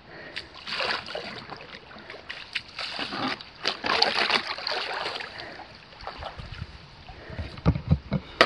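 Kayak paddle strokes dipping and splashing, with water sloshing around the hull as the kayak glides in to shore. A few low knocks come near the end as the kayak comes in against the shore.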